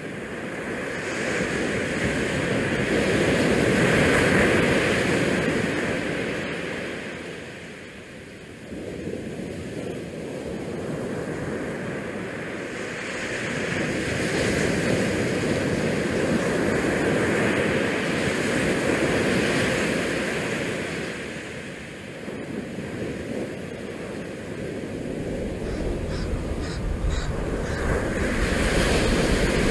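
Wind and bay water making a steady rushing noise that swells and eases every several seconds, with the wind catching the microphone.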